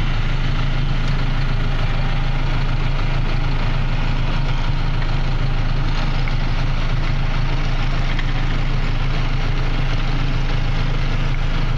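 Cat D6K2 dozer's diesel engine idling steadily, heard from inside the cab as an even low drone.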